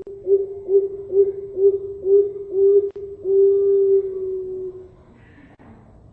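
Zebra dove (perkutut, Thai 'Bangkok' line) cooing its song: a run of about seven short, low coos at roughly two a second, ending in one long drawn-out coo.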